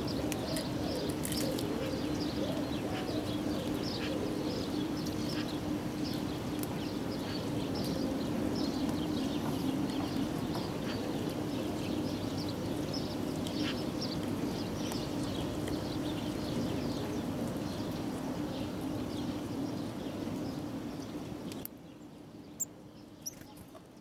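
Small songbirds giving many short, high chirps and calls, over a steady low hum and a background rumble. The sound drops away sharply a couple of seconds before the end.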